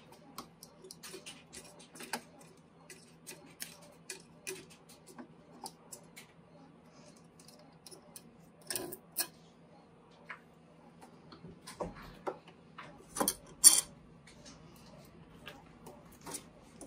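Small metallic clicks and ticks of a screwdriver backing screws out of a lever lock's back plate, with a few louder metal clicks about three-quarters of the way through as the loosened hardware is handled.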